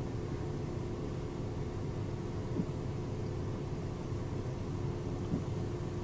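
Steady low hum of a car heard from inside the cabin, with a faint steady tone running through it and two soft knocks, one about halfway through and one near the end.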